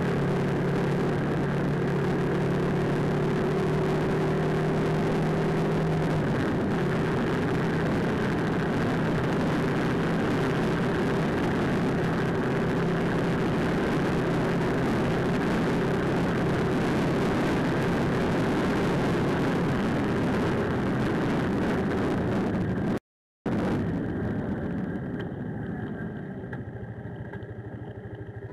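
Motorcycle running steadily down the road under a heavy rush of wind and road noise on the dash camera's microphone. After a brief dropout about 23 seconds in, the engine idles more quietly with the bike stopped.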